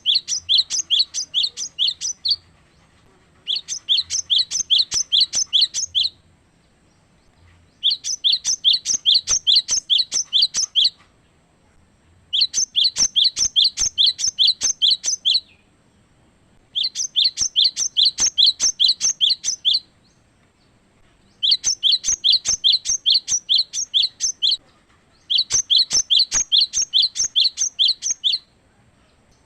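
Cinereous tit (gelatik batu) singing: seven bursts of about three seconds each of a rapidly repeated high, sharp phrase, about four a second, with short pauses between bursts.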